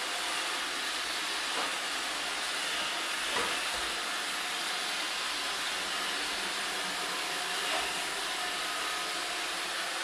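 iRobot Roomba 565 robot vacuum running on a parquet floor: a steady whirring hiss of its vacuum motor and brushes, with three light knocks.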